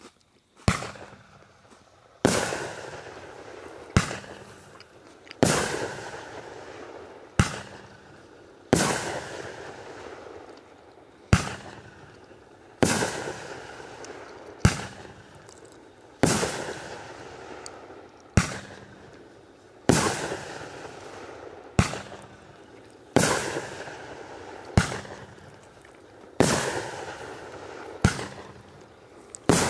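Daggers Edge consumer firework cake firing shot after shot: a sharp aerial burst about every one and a half seconds, each followed by a fading tail of sound.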